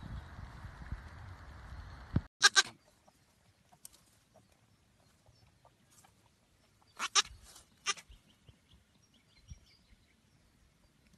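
Baby goat bleating: short, loud bleats about two and a half seconds in, then two more around seven to eight seconds. Before the first bleat there is a steady outdoor rumble and hiss.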